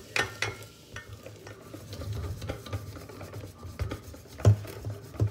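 Wire whisk beating pancake batter in a stainless steel bowl: quick, uneven strokes with the whisk scraping and clinking against the metal, the sharpest knocks near the end.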